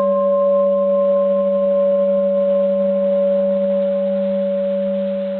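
Antique bronze Japanese Buddhist temple bell ringing on after a single light strike. It holds a long, slowly fading tone of several pitches, with the highest dying away first and the low hum and middle tone carrying on. The clean, long sustain is that of an uncracked old bell.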